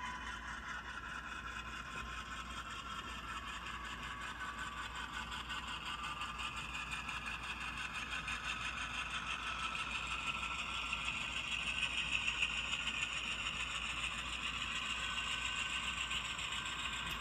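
HO scale model freight train running slowly along the track: a thin, wavering whine with fast, fine clicking from the wheels, growing louder as the locomotive comes closer.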